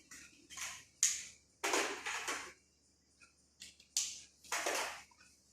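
About six short scraping or rustling noises with sudden starts, the longest about a second in and near the end.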